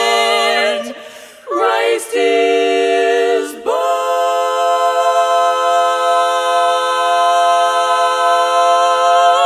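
Women's barbershop quartet singing a cappella in close four-part harmony. A held chord breaks off about a second in and two short chords follow. From about four seconds in, the song's final chord is held long and steady.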